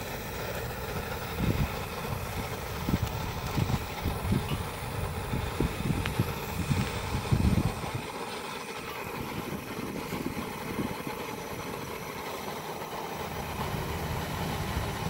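Outdoor propane wok burner running with a steady rushing hiss under a steel wok, with gusts of wind buffeting the microphone from about a second and a half in until about eight seconds.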